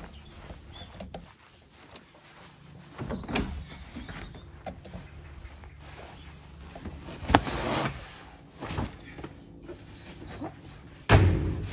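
Horsebox side door being handled and opened, with a sharp click about halfway through and a heavy thump near the end.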